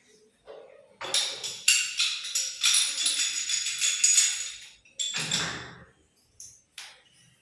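Metal clinking and jingling with bright ringing, in irregular bursts, followed about five seconds in by a duller scrape and a couple of sharp clicks.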